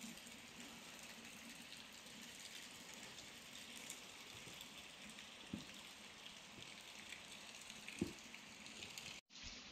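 Faint, steady hiss of water, with two soft thumps about five and a half and eight seconds in. The sound cuts out briefly near the end.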